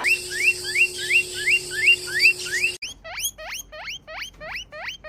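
Parrot giving a rapid run of short squeaky chirps, each rising in pitch, about three a second. After a cut about halfway through comes a second run of sharper, wider-sweeping chirps.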